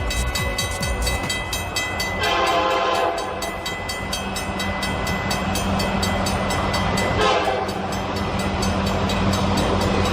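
Union Pacific freight train approaching a grade crossing at speed, its horn sounding two blasts, the first about two seconds in and the second near the end. Under them run the steady rumble of the train and the rapid, even clanging of the crossing bell.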